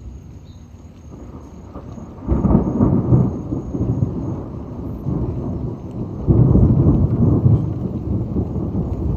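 Thunder from a storm overhead: a low rumble that breaks into a sudden loud peal about two seconds in, with a second loud peal about six seconds in, rumbling on between and after them.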